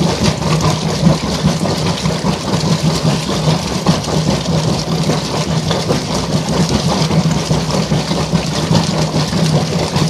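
Easy top-load washing machine agitating in its wash cycle: the motor hums steadily while the agitator churns and sloshes the water in the tub, running normally.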